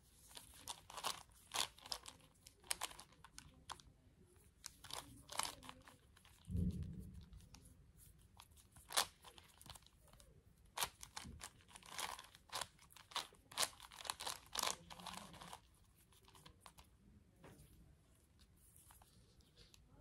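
Plastic pieces of a 5x5x5 Rubik's cube clicking and clacking as its layers are turned, in irregular runs of quick clicks with short pauses between. A dull thump comes about six and a half seconds in.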